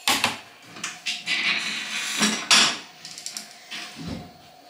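Kitchenware being handled at a counter: a string of knocks and clinks of dishes and pots, with one sharp clack about two and a half seconds in.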